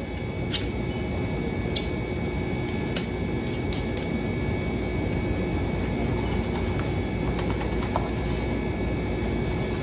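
Steady fan-like hum of room ventilation or refrigeration with a few faint steady tones. Over it, during the first four seconds, come a few light clicks from disposable wooden chopsticks being rubbed together to take off splinters.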